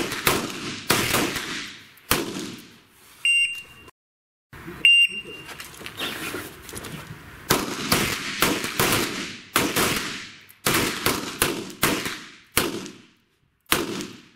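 About a dozen pistol shots at uneven intervals, each with a ringing echo tail, fired by several shooters on the line. Two short electronic beeps sound a few seconds in.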